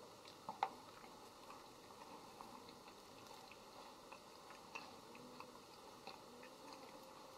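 Near silence: faint room tone with scattered soft ticks and clicks, the sharpest about half a second in.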